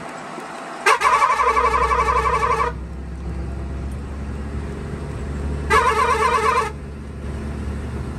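Truck horn blown twice: a long warbling blast of about two seconds, then a shorter one of about a second, over the steady low drone of the running diesel engine.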